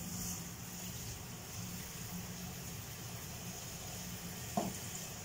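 Kitchen tap running steadily as food is rinsed in a pot under it, with one short sharp sound near the end.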